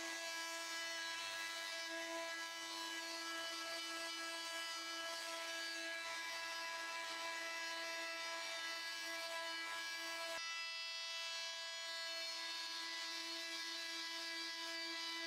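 Bosch GOP 250 CE oscillating multi-tool running with a delta sanding plate, its sandpaper pad rubbing on wood. It makes a steady, even buzz that holds one pitch.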